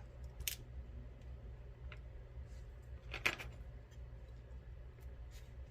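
A few small metal clicks as the key pins and parts of a Mul-T-Lock MT5+ lock are handled during disassembly, the loudest a sharp click a little after three seconds in, over a low steady hum.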